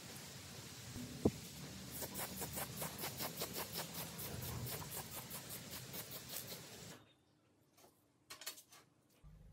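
Aerosol spray can hissing as paint is sprayed, pulsing about four times a second. It cuts off about seven seconds in, followed by a few light clicks of metal parts set down on a workbench.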